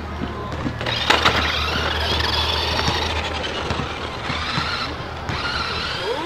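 Toy radio-controlled car's electric motor whining, rising and falling in pitch over and over as it is driven about on concrete, with a steady noise of tyres and gearing.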